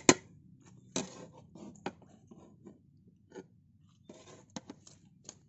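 Flat metal spatula scraping and clinking against a large aluminium pot while cooked biryani rice is turned over: irregular clinks and short scrapes, with a longer scrape about four seconds in.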